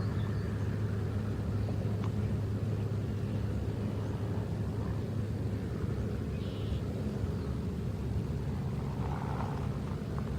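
Steady low hum of a running vehicle engine, even throughout.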